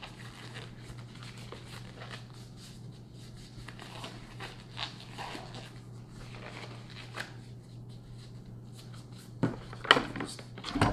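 Disposable gloves being pulled on and adjusted, with faint crinkling and small snaps. Near the end come a few sharper knocks as hands grip and start to pry off a plastic bucket lid.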